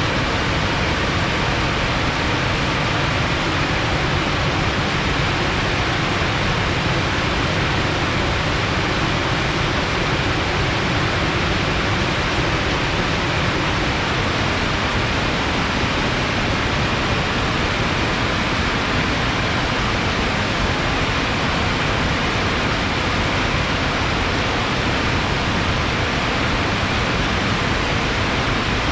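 Rain-swollen water flowing fast and heavy, a steady rushing that does not let up.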